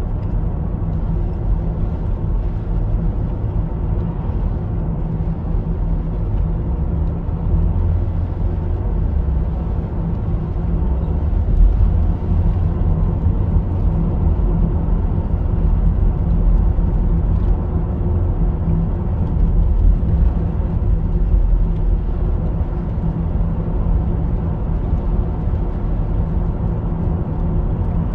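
Steady low drone of a car driving along a road, heard from inside the cabin.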